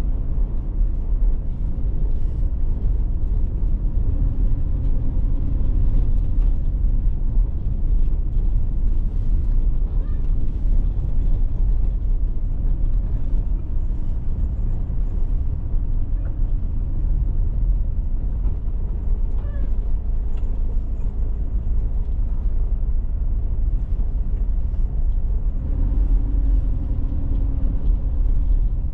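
Steady low rumble of a car's engine and tyres on the road, heard from on board the moving car, with a faint engine hum that grows slightly stronger near the end.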